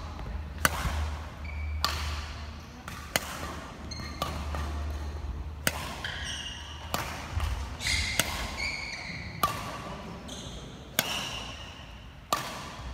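Badminton rally: rackets striking a shuttlecock in sharp cracks about once a second, with short squeaks of court shoes on the wooden floor between the hits.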